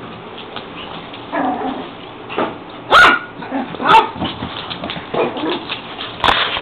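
Puppies and wolves play-fighting, giving short sharp barks and yips, several in a row with the loudest about three and four seconds in.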